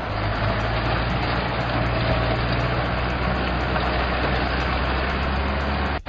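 Engine sound effect for a tracked excavator: a steady, low engine rumble under a rushing hiss.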